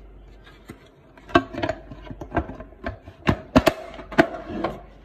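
Canon LBP 6000 laser printer's plastic parts clicking and knocking as they are handled and pushed into place during reassembly. There is a string of about nine irregular sharp clicks, starting about a second in.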